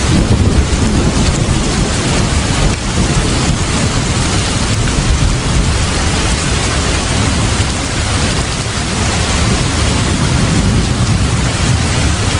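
Heavy rain falling steadily, with a low continuous rumble of thunder underneath.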